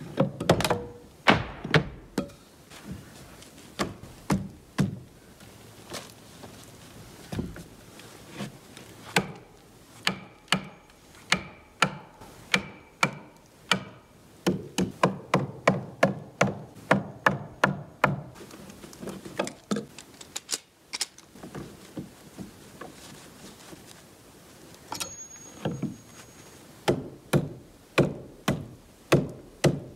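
Hammer blows on wood: runs of sharp strikes, some quick at about three to four a second, broken by short pauses, as in nailing framing lumber.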